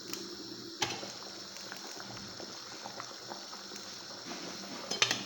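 Pot of rice in water and tomato sauce simmering with a steady bubbling, with a sharp knock about a second in and a louder clatter of knocks near the end.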